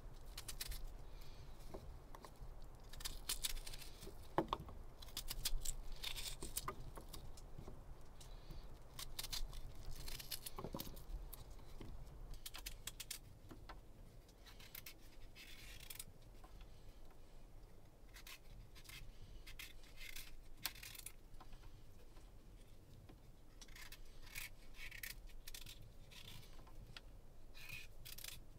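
Food being prepared by hand: irregular light scraping, rubbing and clicking as potatoes are cut, with pieces dropping into a small metal camping pot. The handling is busiest in the first half, over a faint low hum.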